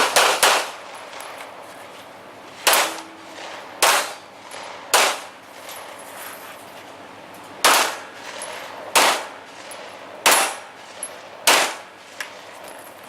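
A string of handgun shots fired at steel targets, about nine in all: two close together at the start, then one roughly every second to second and a half, with fainter clangs of steel being hit between them.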